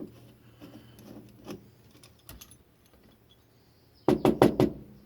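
Scattered light clicks from handling a lock cylinder, then a quick run of about five sharp knocks near the end.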